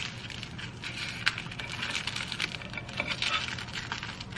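Thin plastic onigiri wrapper crinkling as it is folded by hand around a rice ball, a quick run of crackles with a sharper one about a second in.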